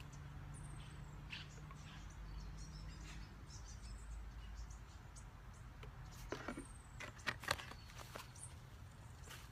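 Small knocks and clicks from handling the oil bottle and filler on the mower while topping up its engine oil, loudest as a few sharp knocks a little past halfway. Faint short bird chirps and a low steady rumble lie behind.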